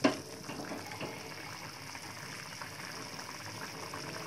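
Chicken curry boiling hard in a kadhai, a steady bubbling. A metal ladle knocks against the pan once right at the start.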